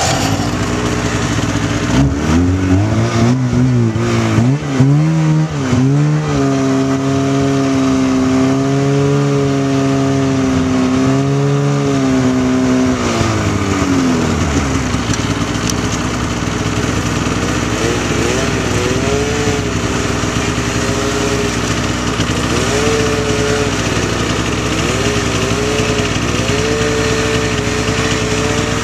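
Snowmobile engine under way: it revs up about two seconds in, holds a steady high pitch, then drops off around halfway and runs on at lower revs with a few small rises in pitch.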